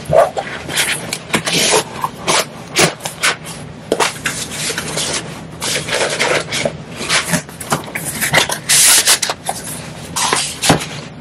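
Hands fitting stiffening side boards into a fabric storage bin: fabric and board rubbing and scraping in irregular bursts, with a few sharp knocks.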